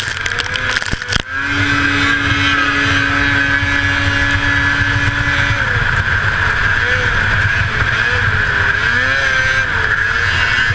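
A 1981 Arctic Cat El Tigre 6000 snowmobile's 500cc two-stroke engine running flat out at high revs under race load, with heavy low track and wind rumble. The engine note holds steady apart from a brief drop about a second in.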